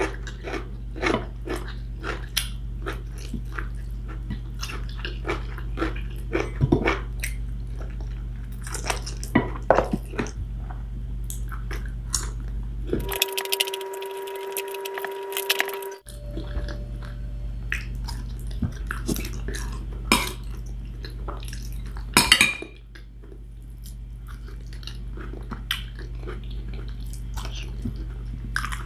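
Close-up eating sounds: chewing, with frequent small clicks and smacks as fingers pull apart chicken wings and pick food from a plate, over a steady low hum. About halfway through, the hum drops out for about three seconds and a steady tone sounds instead.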